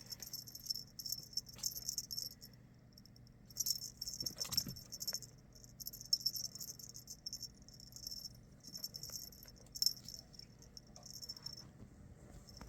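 Feather wand cat toy jingling and rattling faintly in short, irregular bursts as it is jiggled and batted by a ferret at play.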